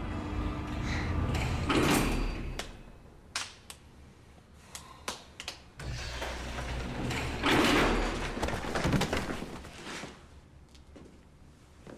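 Heavy sliding doors rumbling and clunking, twice, with scattered clicks and knocks between. Music fades out about two seconds in.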